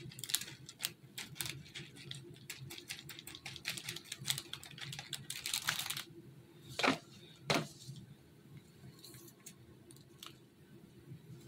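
Small white foam balls pattering onto a plastic cake plate as they are poured from a plastic package: a rapid run of light clicks for about six seconds. Then two sharper knocks about a second apart, and a few faint ticks.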